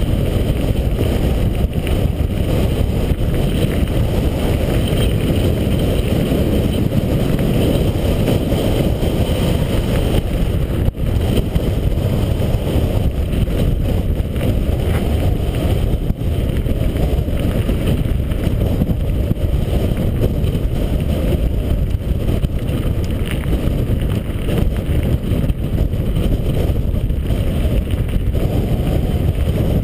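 Steady, loud low rumble of a mountain bike's tyres rolling over a gravel track, mixed with wind buffeting the GoPro HD's microphone.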